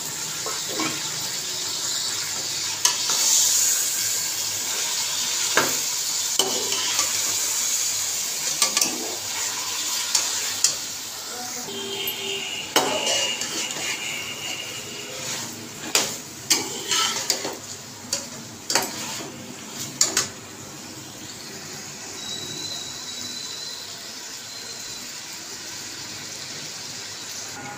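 Slotted metal spatula stirring potatoes and tomatoes in an aluminium pot over the sizzle of frying oil, with sharp knocks and scrapes of the spatula against the pot. The sizzle is steady at first and grows quieter in the last few seconds, after the knocking stops.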